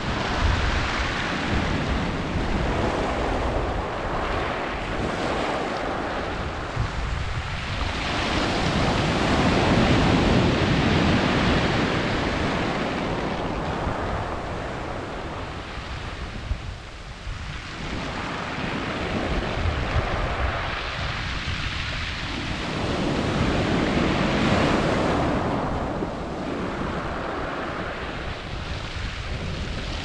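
Sea waves breaking and washing up a shingle (pebble) beach and draining back through the stones. The surf swells and fades in slow surges, loudest about ten seconds in and again at about twenty-five seconds.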